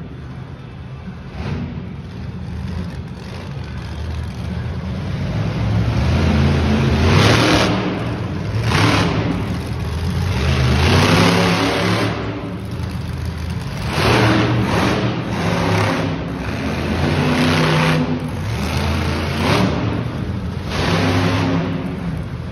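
Bone Shaker monster truck's engine revving hard during a freestyle run, surging up and dropping back again and again as the truck accelerates and maneuvers.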